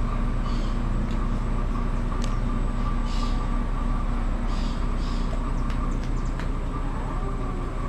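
Steady mechanical hum holding a constant pitch, with a few faint clicks scattered through it.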